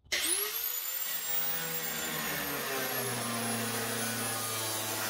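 Electric angle grinder spinning up with a rising whine, then running steadily with a hissing cut as its cutoff wheel bites into the bus's steel rub rail. Its pitch sags a little about two seconds in as it takes the load.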